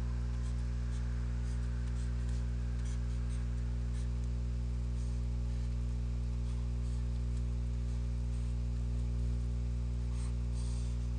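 Steady low electrical hum with a stack of even overtones, a recording-chain mains hum, with faint scattered light ticks over it.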